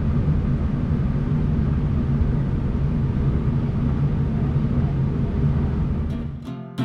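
Steady low rumble of the Symphony Moderna cruise ship's engine heard on board, with a rushing haze of wind and water over it; it cuts off abruptly near the end as acoustic guitar music begins.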